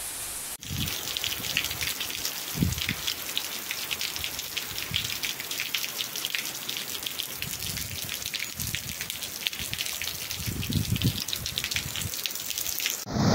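Steady rain falling on wet ground and puddles, with many close drop ticks, and a few dull low thumps.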